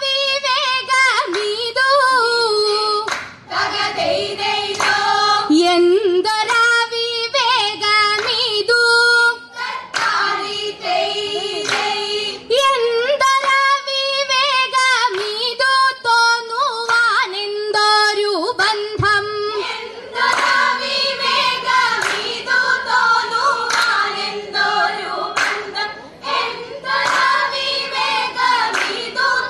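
A group of female voices singing a vanchippattu, the Kerala boat song, in the Aranmula style, with hand claps keeping the beat.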